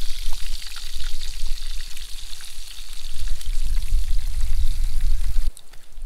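Breaded brook trout fillets frying in hot oil in a pan, a steady sizzle, with a low rumble joining in the second half. The sizzle cuts off suddenly near the end.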